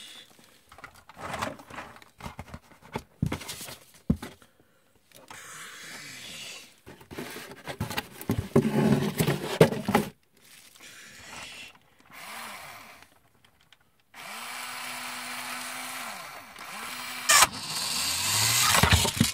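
Small battery-powered electric motor of a Bandai Spiral Shooter toy launcher whirring in several spells of a second or two, the longest and steadiest near the end, among plastic clicks and clatter. A sharp click comes near the end.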